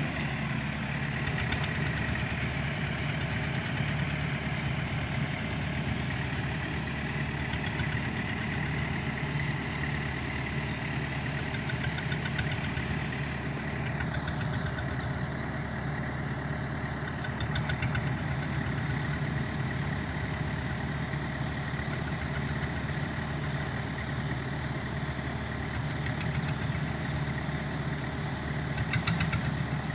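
Pickup truck engine idling steadily, an even low hum.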